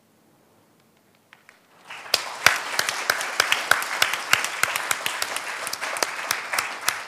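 Audience applauding: a few scattered claps about a second in, then full, steady applause from about two seconds in, with single sharp claps standing out.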